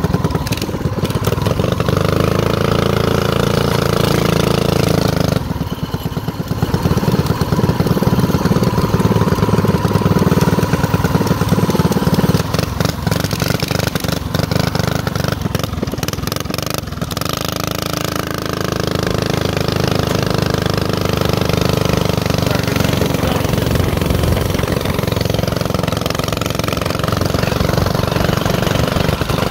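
Mini bike's small single-cylinder engine running while being ridden, its revs rising and falling with the throttle, with a short drop in revs about five seconds in.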